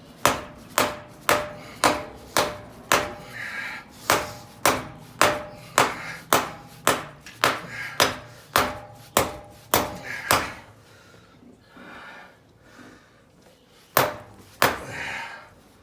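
Hammer blows on a Toyota FJ Cruiser front half shaft, about two a second with a slight metallic ring, driving its splined inner end into the differential until the retaining clip seats. The strikes stop after about ten seconds, and two more come near the end.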